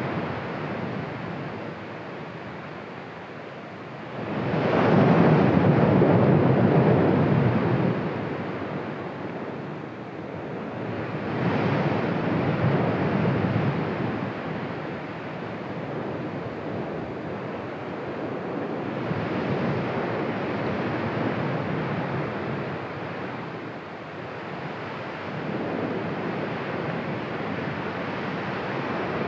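Cumbre Vieja volcano erupting: a continuous rushing noise from the vent and ash column that swells and ebbs like surf. It builds to its loudest about four seconds in, then surges three more times.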